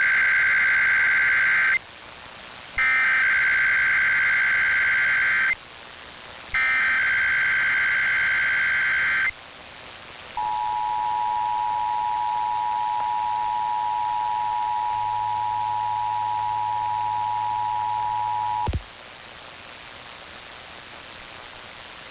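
Emergency Alert System tones: three loud buzzing SAME header data bursts, each just under three seconds with short gaps between, then the two-tone attention signal, a steady two-pitched tone that runs about eight seconds and cuts off with a click. A faint hiss remains.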